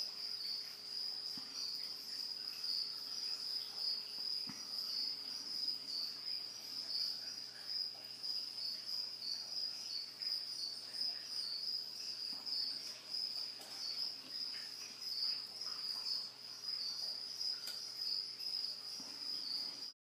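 Crickets chirping in a continuous, fast-pulsing high-pitched trill, with a faint steady low hum underneath.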